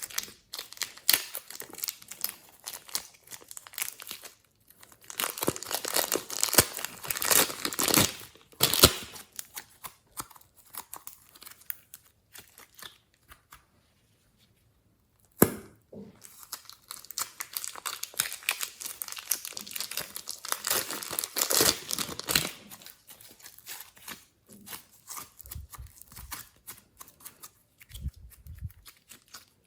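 Slime being worked by hand: sticky crackling and popping as it is stretched and squished, louder in two stretches with a short pause between them.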